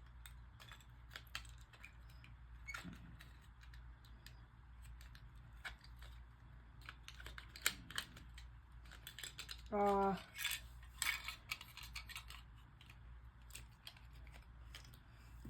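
Small plastic parts of a computer mouse clicking and tapping as they are handled and pressed back together, with irregular light clicks throughout. Just under ten seconds in comes a short pitched sound, the loudest moment.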